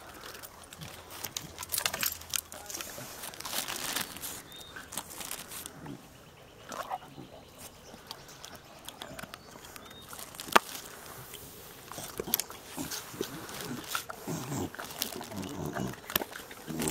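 Dogs crunching raw baby carrots: irregular crisp crunches and clicks, one especially sharp about ten seconds in.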